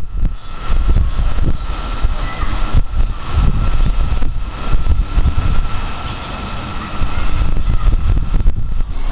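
Strong wind buffeting the camera's microphone in gusts. A faint, steady high whine runs underneath from just after the start until near the end.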